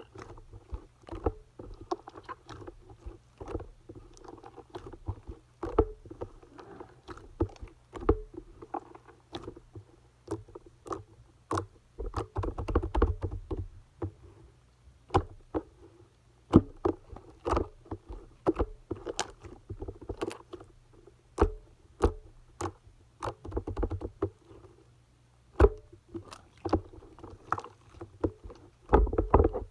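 Slime mixed with clay being pressed, folded and stretched by hand, with frequent sharp clicking pops over soft squishing.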